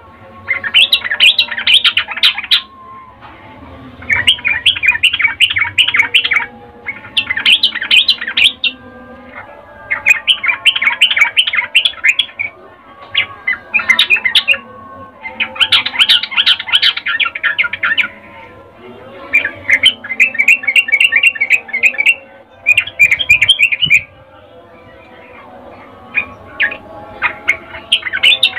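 Female yellow-vented bulbul (trucukan) giving repeated bursts of fast chattering notes, each a second or two long with short pauses between. This is the female's breeding-condition call, used as a lure to provoke male bulbuls into singing.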